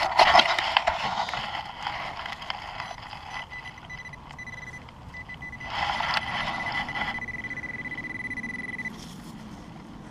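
Scraping and rustling in dirt as a target is dug out, then a steady high electronic metal-detecting tone that sounds for about six seconds and cuts off suddenly near the end: metal is being picked up in the hole.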